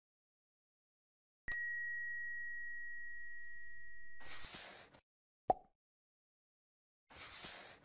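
Animated subscribe-button sound effects. About a second and a half in, a bright notification-bell ding rings out and fades over nearly three seconds, followed by a short swish. A single short click comes at about five and a half seconds, and another swish near the end.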